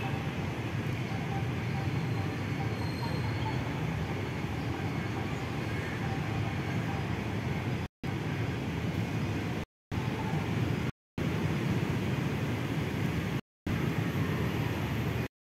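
Steady low rumble of outdoor background noise, with no distinct event. It is cut by five brief dropouts to silence in the second half.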